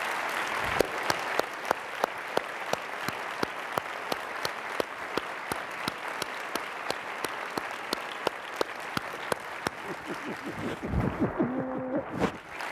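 A large audience applauding steadily. One nearby person's sharper claps stand out on top, about three a second. A brief voice is heard near the end.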